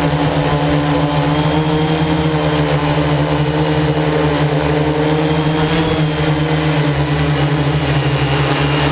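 Hexacopter's electric motors and propellers buzzing steadily in flight, a constant hum of several held tones over a rushing hiss.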